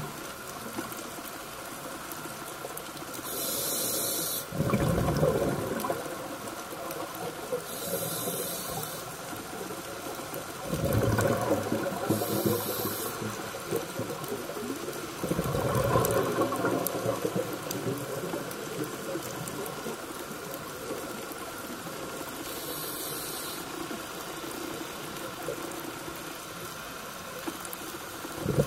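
Scuba diver breathing through a regulator underwater: a short hiss on each inhale, then a louder rush of bubbling exhaust on the exhale, about four breaths with long gaps between them, over a steady underwater hum.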